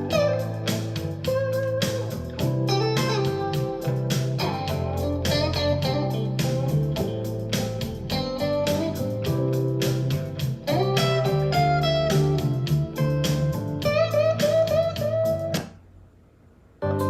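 Guitar-led music, with plucked electric guitar over strong bass notes, played back through a portable Bluetooth speaker for a sound test. It cuts out for about a second near the end, then starts again.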